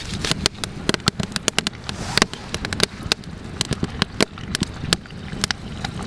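Irregular sharp crackles and pops, several a second, from a wood campfire and a small skillet of squid and garlic frying in oil over it.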